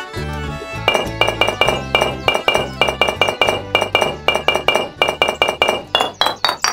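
Background music: quick, evenly repeated bright chiming notes over a bass line, ending in a short run of notes climbing in pitch.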